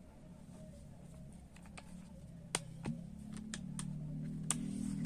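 Light clicks and taps of a glass and utensils being handled, with a low steady hum that comes up about halfway through and grows louder.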